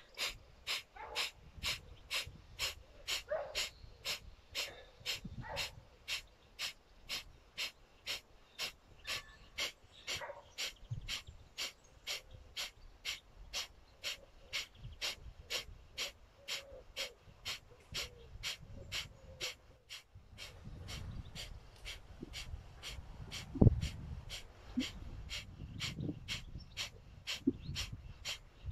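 Breath of fire through the left nostril: rapid, forceful exhalations pumped from the abdomen, evenly at about two and a half a second. From about 20 seconds in a low rumble joins, with one sharp thump near 24 seconds.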